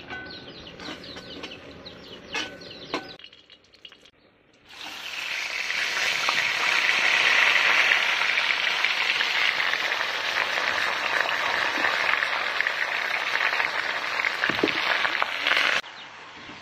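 Faint bird chirps at first, then, about five seconds in, leafy greens sizzling loudly in a hot metal wok as they are stirred with a slotted spoon. The steady hiss cuts off suddenly near the end.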